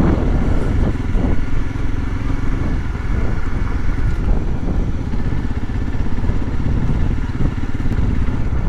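Motorcycle engine running steadily at low speed while the bike rides a rough dirt track, with a fast, even low pulse throughout.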